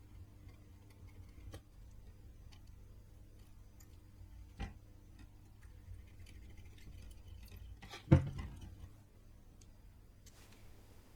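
Light clicks and taps of small tools against the circuit board while old capacitors are worked off, with a sharper click about four and a half seconds in and the loudest one about eight seconds in, over a faint low hum.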